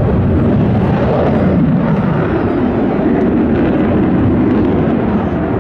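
F-16 fighter jet's engine (a GE F110 turbofan) heard from the ground during a display pass: loud, steady jet noise, heaviest in the low end, with a tone that shifts slowly as the aircraft moves.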